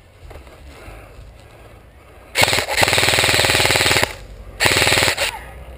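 Airsoft gun firing on full auto in two loud bursts of rapid shots, a longer one of under two seconds and then a short one.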